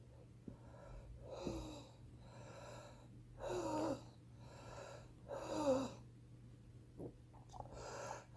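A heavy smoker's wheezing breaths. There are four louder breaths about two seconds apart, each carrying a whistling tone that slides down in pitch, with quieter breaths between them.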